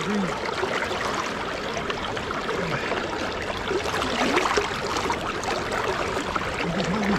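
River water flowing steadily, a continuous rushing and splashing.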